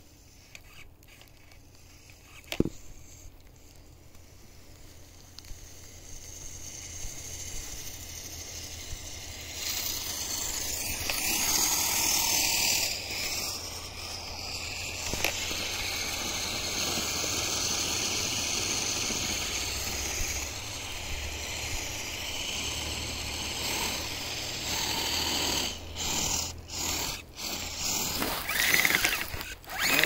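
Radio-controlled truck's electric drivetrain whirring as it drives in snow. It starts quietly with a single click, and the running noise builds up about six seconds in.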